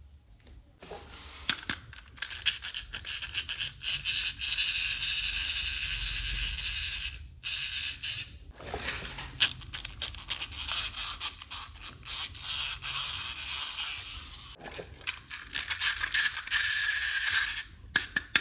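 Close-up handling of plastic toy pieces and packaging: a dense run of scraping and rustling with many small clicks, broken by short pauses about seven and eight and a half seconds in.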